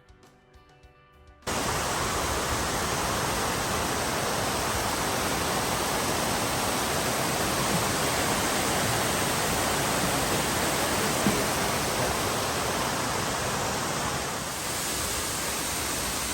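Faint music stops about a second and a half in, giving way abruptly to the loud, steady rush of a waterfall.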